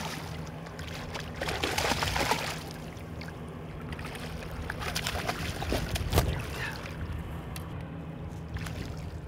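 A hooked largemouth bass splashing and thrashing at the surface among lily pads, with water sloshing against the boat as it is drawn in; the splashing is strongest about two seconds in. A steady low hum runs underneath, and there are a few sharp knocks near the middle.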